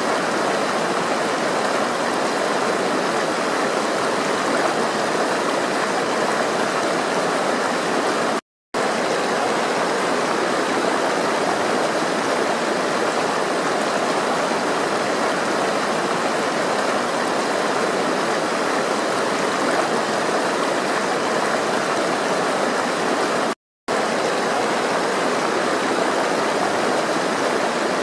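Flowing water, a steady rushing stream with no breaks in its rush. Twice it cuts off to silence for a split second, about a third of the way in and near the end.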